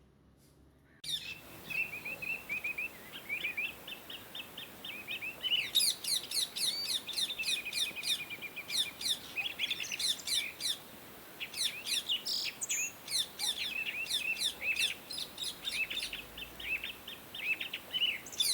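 Birds chirping: starting about a second in, a run of short trilled notes, then from about five seconds in many quick, high, downward-sweeping chirps in rapid succession, almost without pause.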